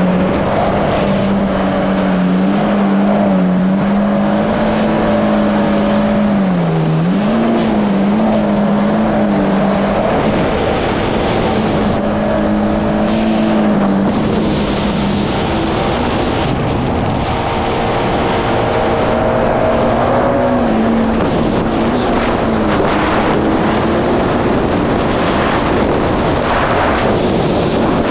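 Yamaha GP1800R SVHO jet ski's supercharged engine running at speed, its pitch wavering with the throttle, under heavy wind and water rush. The engine note becomes less distinct about halfway through as the wind and spray noise takes over.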